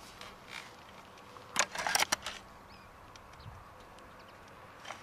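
Sharp metallic clicks and clacks of a Gamo Socom 1250 spring-piston break-barrel air rifle being handled: a quick cluster of clicks near the middle as the barrel is broken open and cocked, and one more sharp click at the very end.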